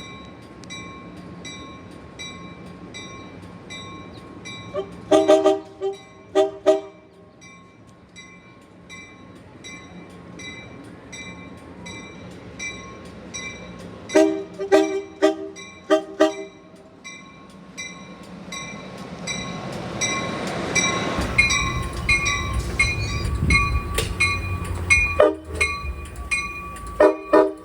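An Amtrak Surfliner cab car's horn sounds three groups of short blasts, about three blasts in each, and a train rumbles past midway through. A steady ringing repeats a couple of times a second underneath, like a grade-crossing bell.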